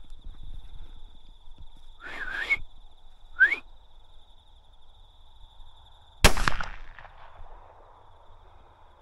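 Two short rising 'Oi' calls to stop a fox, then a single shot from a Tikka rifle in .17 Remington about six seconds in, the loudest sound, with a short echo trailing off. Crickets trill steadily throughout.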